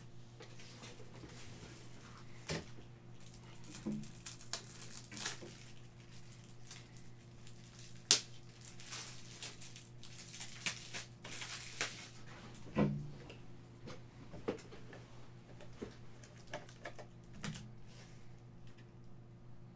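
Sealed trading card packs being handled: plastic wrappers crinkling and tearing in a crackly stretch from about 8 to 12 seconds in, with scattered clicks and soft knocks on the table. A steady low hum lies under it all.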